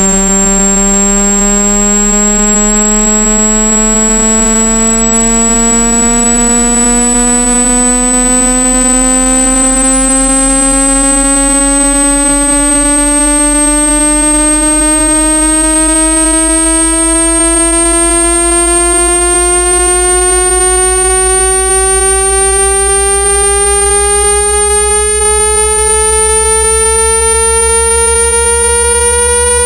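A synthetic speaker-cleaning tone, a loud buzzy tone rich in overtones, slowly sweeping upward in pitch. It sits over a steady low bass hum and a thin high whistle. It is a water-ejection pressure sweep meant to vibrate trapped water and dust out of a phone speaker.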